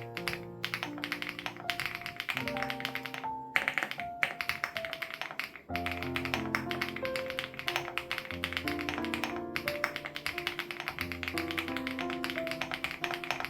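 Fast typing on a Crush80 Reboot custom mechanical keyboard with HMX Hyacinth switches: a rapid run of key clicks with a few brief pauses, over soft background music of held notes.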